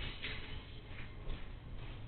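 Freight train wagons rolling slowly through the yard, the wheels clacking irregularly over rail joints and points over a low rumble.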